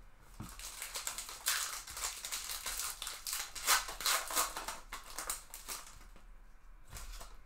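Foil wrapper of a 2023 Bowman Baseball card pack being torn open and crinkled by hand: a dense crackling rustle that fades out about six seconds in.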